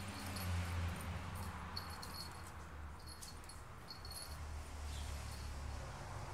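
A cocker spaniel and a pug puppy play-fighting, with low dog growling at the start and again near the end, and a few faint light ticks.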